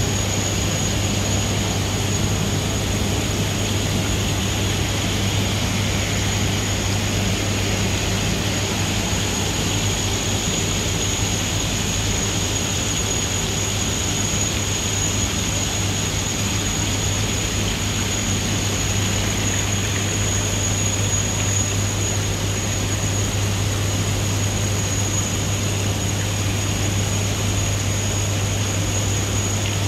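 Steady machine drone: a low hum and a constant high-pitched whine over an even rushing noise, with no change in level.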